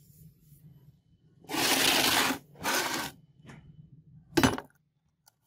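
Two noisy scrapes, each under a second, then a single sharp knock about four and a half seconds in, as a rusty steel cleaver blade is handled and set down in a plastic tub.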